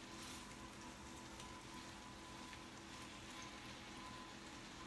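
Thin-sliced sirloin steak sizzling faintly as it browns in a pan, a steady soft crackle with a few light ticks.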